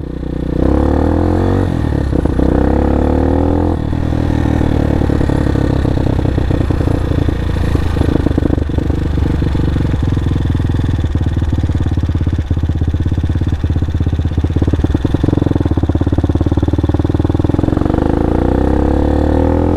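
X-Pro Vader 125cc four-stroke single-cylinder motorcycle engine running under way. Its pitch rises as it revs up over the first few seconds, it runs fairly steadily through the middle, and it climbs again near the end.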